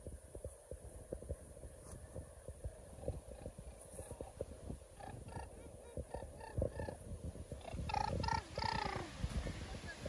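A baby babbling in short pitched sounds, then a louder squeal that falls in pitch near the end, over irregular low thumps and rustling close to the microphone.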